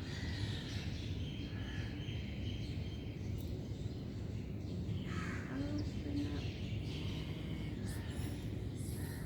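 Birds calling and chirping now and then over a steady low background rumble.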